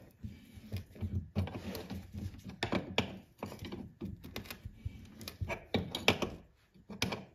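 Screwdriver scraping and chipping at rust and dirt around a VW Karmann Ghia's wiper spindle, a run of short scratchy strokes and small knocks of metal on metal.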